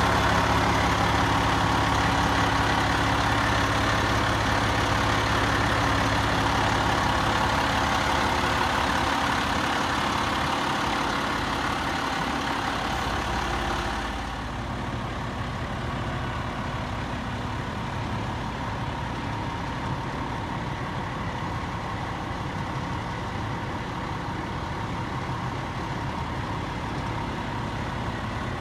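Hydraulically driven Atlas Copco air compressor running loud and steady over the truck's idling DT530E diesel. About halfway through the sound drops to a quieter, duller steady engine idle.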